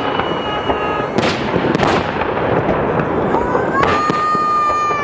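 Fireworks display: continuous crackling and popping with repeated bangs. About three and a half seconds in, a steady high tone rises and is held to the end.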